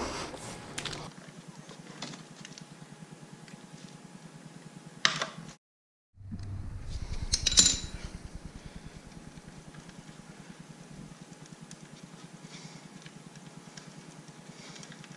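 Quiet handling sounds while setting a plastic oil catch jug under a motorcycle and reaching up to loosen the oil drain bolt: a soft knock about five seconds in and a sharper metallic clink a couple of seconds later, over a faint steady hum.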